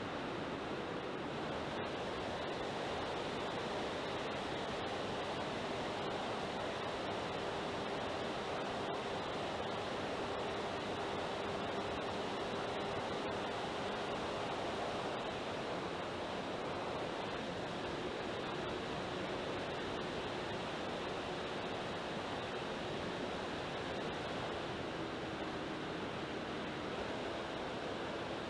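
Airborne onboard-camera audio from an electric RC Spitfire: a steady rush of wind over the camera with the faint drone of the motor and propeller underneath, its pitch shifting slightly.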